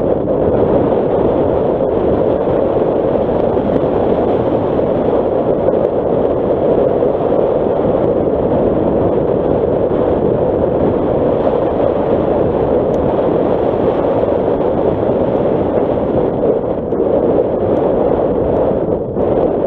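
Nissan Qashqai driving along a gravel track: a steady noise of tyres on loose gravel and the running car, with no distinct engine tone.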